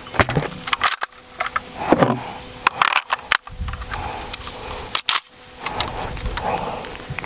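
Handling noises: scattered sharp clicks and rustling, with wind rumbling on the microphone.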